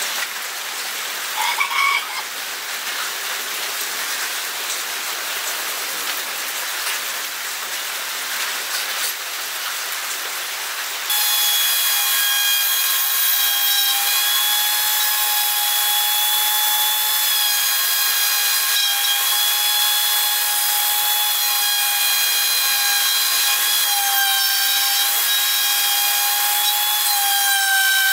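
An even hiss for the first ten seconds or so, then suddenly the steady high-pitched whine of a small high-speed power tool as its bit cuts a lengthwise slot into a wooden cylinder held on the lathe.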